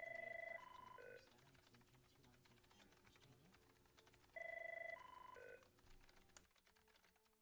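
Electronic telephone tone: a short three-step sequence of pure beeps, each step at a different pitch, heard twice about four seconds apart over a faint office background.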